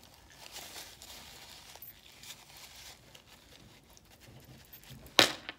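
Faint, irregular small rustling and handling noises at close range, then one sharp, loud smack about five seconds in.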